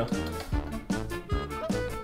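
Upbeat background music with a steady beat, in a jazzy swing style.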